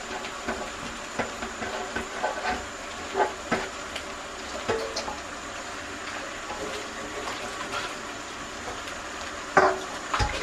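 Kitchen tap running into a sink while dishes are washed by hand, with frequent light clinks and knocks of a stainless-steel bowl and other dishware, and one louder clank near the end.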